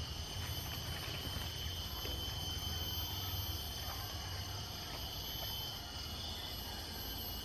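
Steady drone of insects, several high tones held evenly, over a low rumble.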